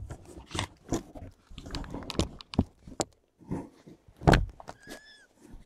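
Close-up clicks, rustles and thumps of a mother cat and her newborn kittens shifting about on a fleece blanket, the loudest a thump a little past four seconds in. Near the end a newborn kitten gives one short, high mew that rises and falls.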